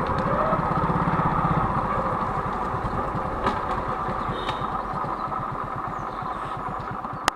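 Motorcycle engine running steadily on the move, with wind and road noise, heard from a camera on the bike. It grows gradually quieter, and there is a sharp click near the end.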